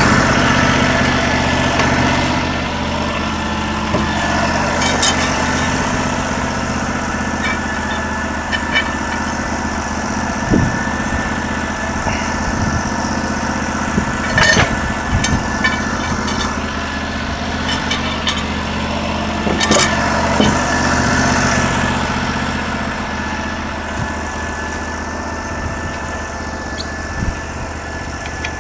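Small gasoline engine of a Norwood LM29 portable sawmill, 16 hp, running steadily, with a few sharp knocks scattered through as the mill and lumber are handled.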